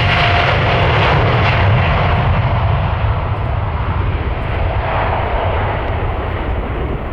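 Boeing 787-9 Dreamliner's Rolls-Royce Trent 1000 jet engines running at departure power, a loud steady roar that slowly fades and loses its high end as the airliner moves away.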